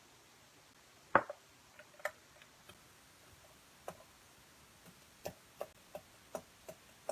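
Light clicks and taps of craft supplies handled on a work mat: one sharp click about a second in, a few faint ones, then a run of small ticks about three a second in the second half.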